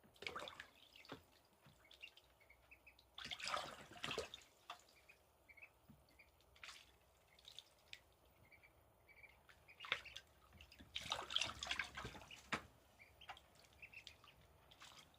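Call duck ducklings splashing and paddling in shallow water in a plastic storage case, in two longer flurries of splashing with scattered drips and small splashes between, and short high peeps.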